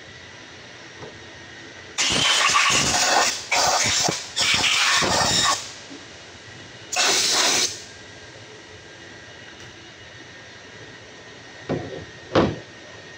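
Compressed-air blow gun blasting in loud hissing bursts, three nearly back-to-back and then a shorter fourth, blowing out a diesel cylinder head's injector and intake passages to clear metal debris. Near the end, two short knocks as the head is handled.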